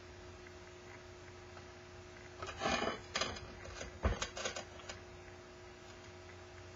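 Handling noise from a ceramic bowl being shifted and tilted on a work table: a couple of seconds of scraping and rustling, with a sharp knock about four seconds in. A faint steady hum runs underneath.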